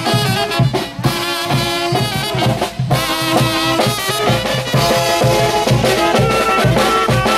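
Village brass band playing a carnival dance tune: saxophones and brass holding the melody over a steady beat on bass drum and snare drum.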